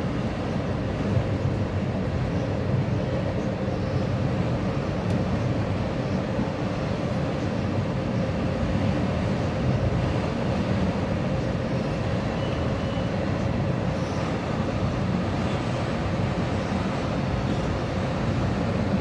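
Metra commuter train running along the mainline, heard from inside the cab car: a steady rumble of wheels on rail with a faint steady hum.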